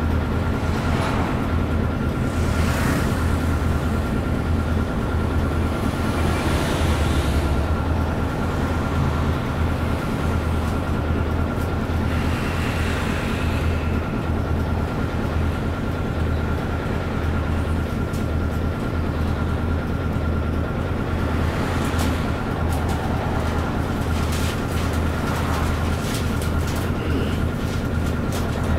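Isuzu KC-LV380 bus's V8 diesel idling steadily while the bus stands still, heard inside the passenger cabin, with a faint steady high tone. A few vehicles pass outside, swelling and fading.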